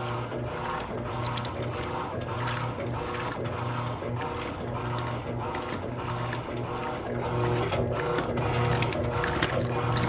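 Electrolux Essencial Care LES13 washing machine running its wash cycle, a racket: a motor hum that cuts in and out in a regular rhythm, with a rattle recurring about once a second.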